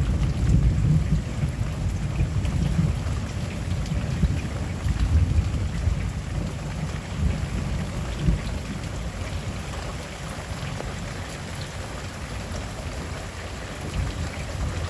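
Rolling thunder over steady rain. The low rumble is heaviest in the first several seconds and slowly dies away, leaving the hiss of the rain.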